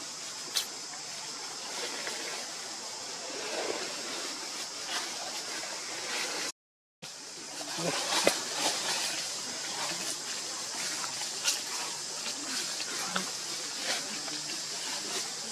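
Forest ambience: a steady high-pitched hum with scattered light clicks and rustles, cut out for a moment about six and a half seconds in.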